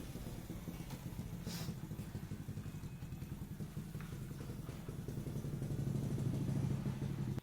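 A small engine running, a steady low pulsing hum that grows louder toward the end and then cuts off suddenly.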